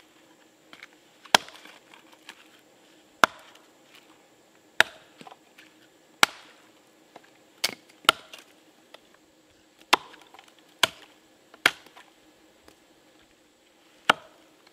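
Hatchet chopping a branch on a log: about ten sharp woody strikes, irregularly spaced a second or two apart.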